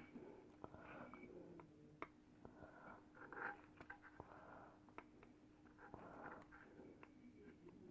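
Near silence with faint, scattered clicks and light scraping from hands and small tools working on a circuit board while its tactile push-button switches are replaced, over a faint steady hum.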